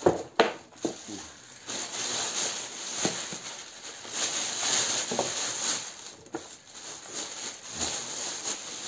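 A few wooden knocks as a beehive frame is handled, then a hand pressure sprayer hissing as it mists diluted hydrogen peroxide (about 3%) into a plastic bag holding the frame. The bag's plastic rustles throughout.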